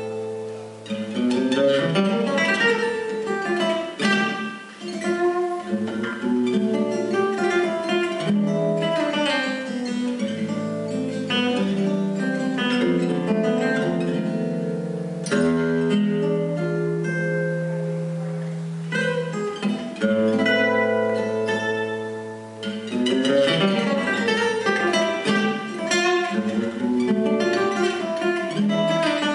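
Solo gypsy-jazz guitar, an oval-soundhole Selmer-Maccaferri-style acoustic, playing a Romani-flavoured instrumental. Quick picked melodic runs ring over sustained bass notes, with a slower passage on long low notes about halfway through.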